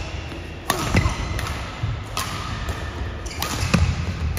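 Badminton rackets striking the shuttlecock in a fast doubles rally: about five sharp hits, the last two in quick succession, with thudding footsteps on the court.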